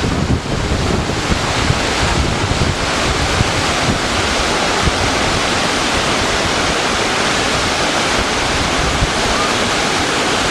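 Fallbach waterfall: falling water making a steady, loud rush.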